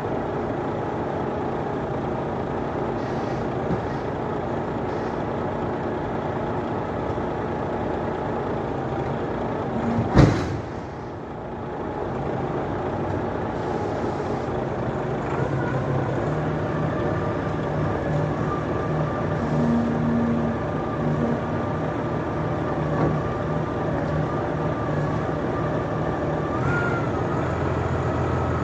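Heavy diesel machinery running steadily, with one sharp bang about ten seconds in. From about halfway a steady whine sits over the engine note.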